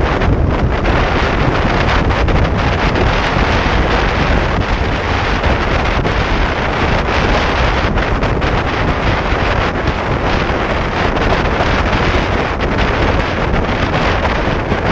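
Wind rushing over the camera microphone on a Yamaha R15 motorcycle at highway speed, a loud steady roar with the bike's engine and road noise mixed beneath it.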